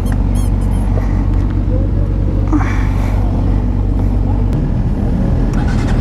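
Motorcycle engine idling steadily, its low note changing about four and a half seconds in. Short high chirps sound near the start.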